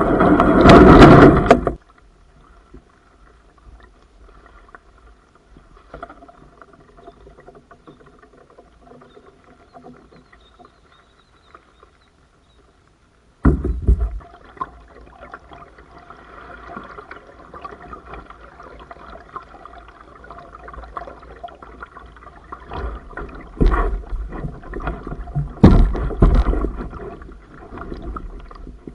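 Kayak paddling on calm water: quiet paddle strokes and water sounds, with a loud rush at the start and two loud bursts about two seconds apart near the end. The sound drops out briefly a little before halfway.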